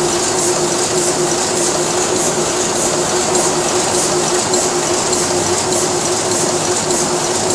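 Heidelberg GTO 46 single-colour sheet-fed offset press running at speed: a steady mechanical clatter and hum, with a regular hissing beat about twice a second as it cycles.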